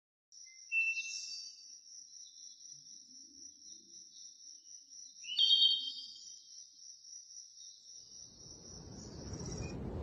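A continuous high-pitched cricket trill, with two brief louder chirps at about one second and about five and a half seconds. A low rushing noise swells in from about eight seconds.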